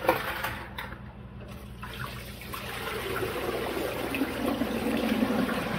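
Water pouring into a container to soak acorn starch. A steady splashing rush starts about two seconds in and grows louder as the vessel fills.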